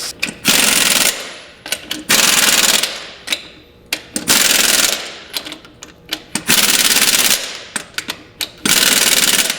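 Compressed air blowing through an air chuck into a tire: five hisses about a second long, roughly two seconds apart, with sharp clicks in between. The tire is being inflated to seat its back bead on the wheel.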